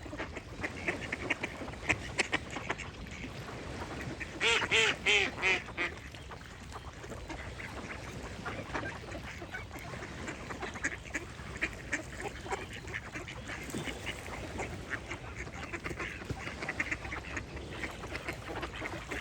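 A duck quacking in a quick run of about five loud quacks about four seconds in, over small birds chirping steadily.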